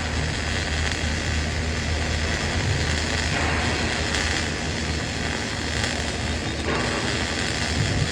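Electric welding arc on a steel pipe joint: a steady hiss with a low hum underneath.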